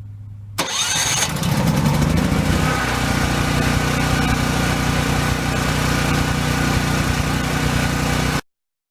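Cummins Onan 2800-watt gas generator starting up with fresh oil: it catches about half a second in, rises in speed over the next couple of seconds, then runs at a steady speed. The sound cuts off suddenly near the end.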